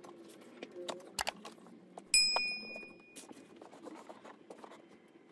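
Light clicks and knocks of a cardboard board-game box and its pieces being handled. About two seconds in, a single bright bell chime rings out and fades over about a second: the ding of a subscribe-button animation.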